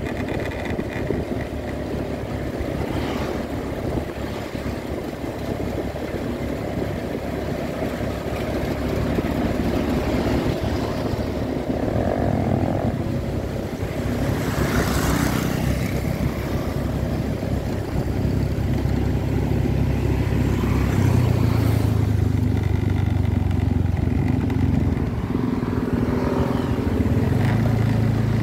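Small motorcycle engine running while riding, its note rising and falling with the throttle. A louder rush of passing traffic comes about halfway through.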